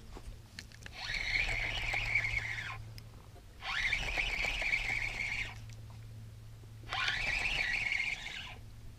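Spinning reel being cranked to bring in a hooked bass: a whine from the reel that rises in pitch as the handle speeds up, in three bursts of about two seconds with pauses between, as the rod is pumped and line taken in.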